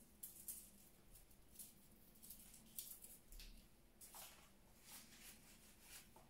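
Near silence with faint, scattered rustles and light crackles of dried reed stems being handled in a floral arrangement, a slightly stronger rustle about four seconds in.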